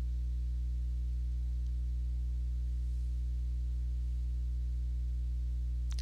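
Steady low electrical hum with a stack of even overtones, unchanging throughout, over faint hiss.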